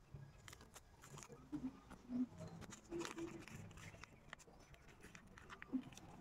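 Faint crinkling and crackling of a plastic wrap with scattered small clicks, as gloved hands peel it off an air-layered rubber plant branch to bare the rooted medium.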